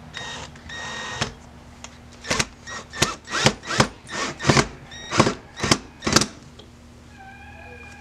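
Mounting screws being driven into a door frame with a screwdriver: a run of sharp squeaks, about two a second, following the turns of the screwdriver. A brief squeaky tone follows near the end.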